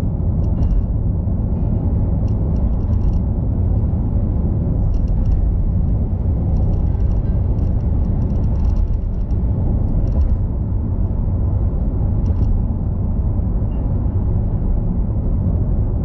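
Steady low rumble of a car's tyres and engine at expressway speed, heard inside the cabin, with light clicks now and then.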